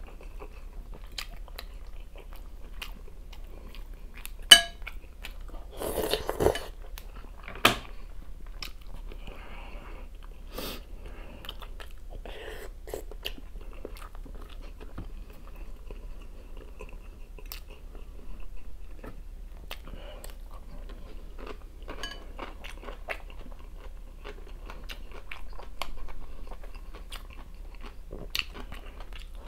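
Close-miked eating sounds: chewing, crunching and biting, with short clicks of cutlery against a glass bowl. The loudest is a sharp clink about four and a half seconds in.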